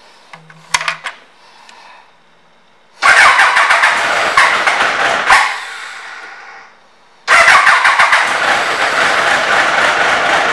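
Faint clicks, then the 2002 Triumph Trophy 1200's inline-four engine starts suddenly, runs about two seconds and dies away. It is started again a few seconds later and keeps running.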